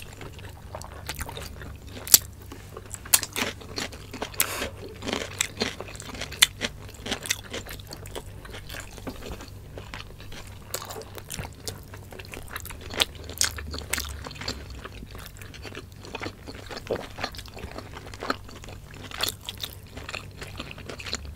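Close-up eating sounds of chicken liver and gizzard adobo with rice and cucumber salad, eaten by hand: wet chewing and lip smacks with irregular sharp, crunchy bites.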